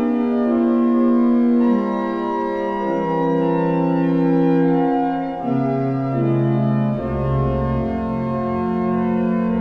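Sampled Cavaillé-Coll pipe organ (Hauptwerk set of the Notre-Dame de Metz organ) playing slow, sustained chords, the lowest voice stepping down several times; a deep pedal note comes in about seven seconds in.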